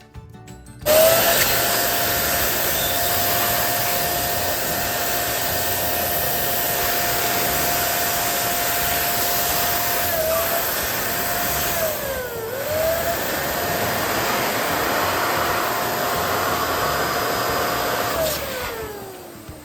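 Electric balloon inflator pump switching on abruptly about a second in and running with a steady rushing air noise and motor whine. The whine dips in pitch twice in the middle, then winds down with a falling whine near the end.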